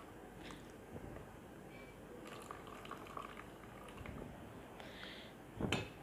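Water poured from a glass measuring jug into a microwave-safe bowl, a faint trickle and splash. A short knock sounds near the end.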